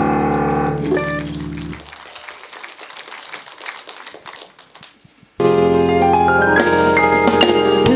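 Live band music led by keyboards ends on a held chord with a short keyboard run, fading out about two seconds in. Light clapping follows for a few seconds. Then a new piece starts abruptly on keyboards with the band, about five seconds in.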